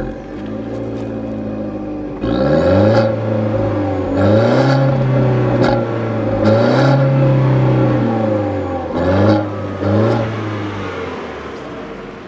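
2014 Fiat 500L's 1.4-litre MultiAir turbocharged four-cylinder heard at the tailpipe, idling and then revved three times, each rev held for a second or two. Two quick blips of the throttle follow before it drops back to idle.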